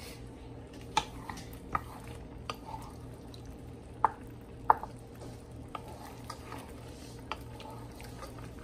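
Wooden spoon stirring chunks of chicken in a simmering sauce in a large aluminium pot, with wet squelching and sharp knocks of the spoon against the pot's side every second or so. A steady low hum runs underneath.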